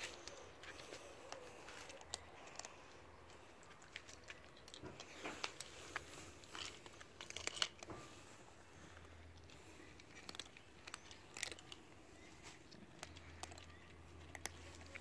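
Several cats crunching and chewing dry kibble from bowls: a faint, irregular patter of crunches and clicks, busiest about halfway through.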